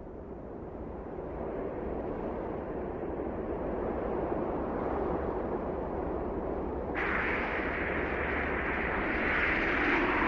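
Wind rushing over sand dunes, a steady noise with no tone to it that swells slowly and turns suddenly brighter and louder about seven seconds in.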